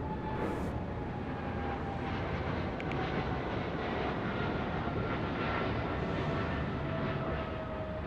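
An airplane passing overhead: a steady rumble with a whine that slowly falls in pitch.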